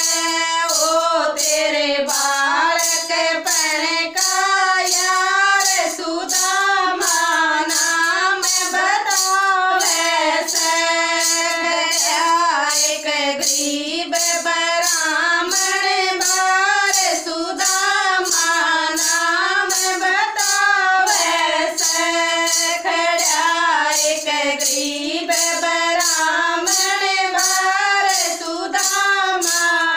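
Women singing a Hindi devotional bhajan about Krishna and Sudama, kept in time by a steady clapped and shaken beat about twice a second.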